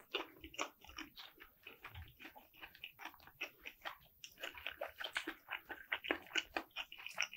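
A person chewing tender, chewy sliced turkey meat with the mouth closed: many small, irregular mouth clicks and smacks.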